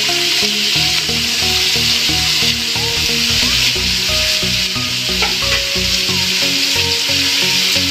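Sliced onions, julienned carrots and green capsicum sizzling in hot oil in an aluminium kadai, a steady frying hiss, with background music playing along.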